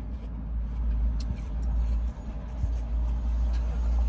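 Steady low rumble of a car, heard from inside the cabin, with a few faint clicks.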